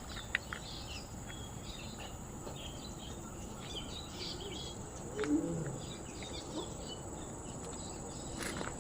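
Forest ambience: a steady high-pitched insect drone with many short bird chirps scattered throughout. A brief low sound about five seconds in is the loudest moment.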